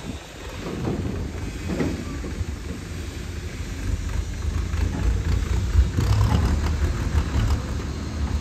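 A vehicle engine running with a low rumble that grows louder about four seconds in.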